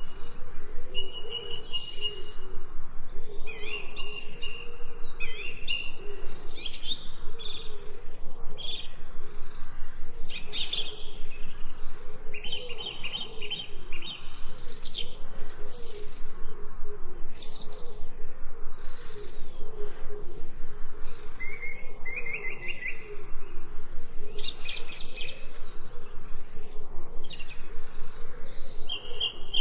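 A chorus of forest birds chirping and trilling, many short calls overlapping without a break, with a lower wavering call underneath.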